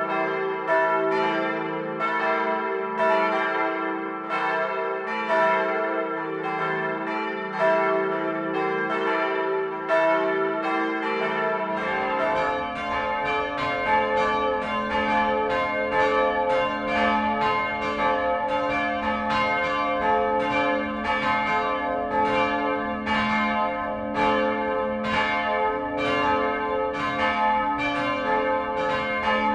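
Several church bells swinging and ringing together in a continuous peal, their strokes overlapping about twice a second. About twelve seconds in, it cuts to a different church's peal, which has a low rumble underneath.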